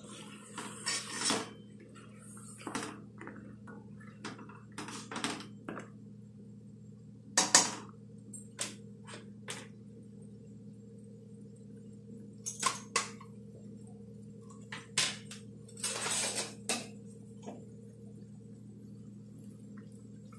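Spoon stirring mutton in a kadhai, with irregular clinks and knocks against the pan over a steady low hum.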